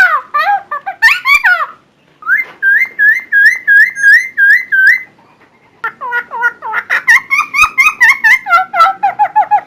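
Cucak timor songbird singing loud whistled phrases: slurred falling notes at first, then after a brief pause a run of about nine identical upslurred whistles, and after another pause a fast varied run of notes.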